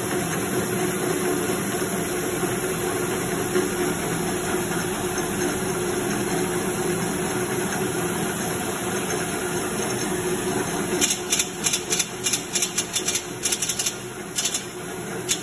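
Heidelberg paper folding machine running with a steady mechanical hum. About 11 seconds in the running noise eases slightly and a run of sharp, irregular clicks starts, a few a second.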